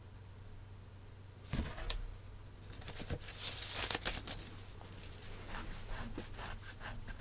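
Paper record sleeves being handled. There is a light knock about a second and a half in, a rustle of paper and card around three to four seconds in, then soft rustles and clicks, all over a low steady hum.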